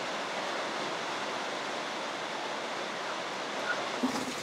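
A steady, even rushing hiss. A few faint knocks come in near the end.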